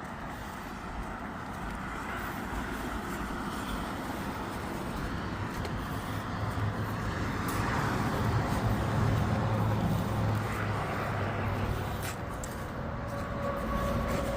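A motor vehicle's engine running steadily, its low hum growing louder in the middle and easing off near the end.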